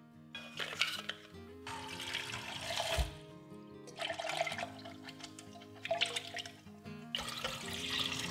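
Tap water running into a glass jug in three short bursts as dried shiitake mushrooms are rinsed, the last burst being the rinse water poured out into a steel sink, over soft background music. A few light clicks sound near the start.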